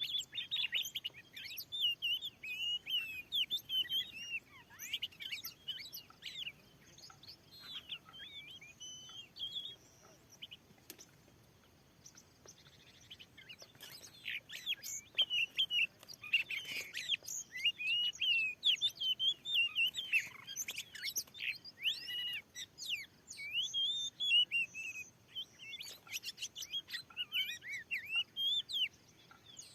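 Oriental magpie-robin (kacer) song: a rapid run of varied whistles and chirps. It falls quiet for a few seconds about a third of the way in, then resumes.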